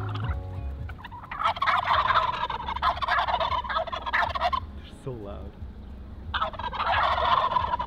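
Wild turkeys gobbling in two long rattling bouts, the second starting about six seconds in.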